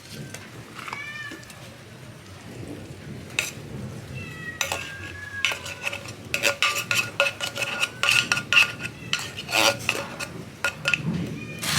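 Cats meowing, while a spoon scrapes and clinks wet cat food out of a tin can. The scraping and clinking run in quick strokes from about four seconds in, with meows over them.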